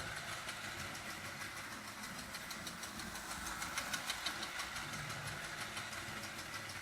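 Vintage Marx 027 toy steam locomotive running on its track: a steady motor hum with fast, even ticking.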